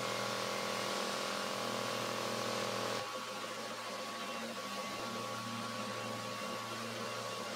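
Random orbital sander running steadily against a rough wooden board, cleaning off excess glue and smoothing the joint: an even whirring hiss with a steady hum, dropping a little in level about three seconds in.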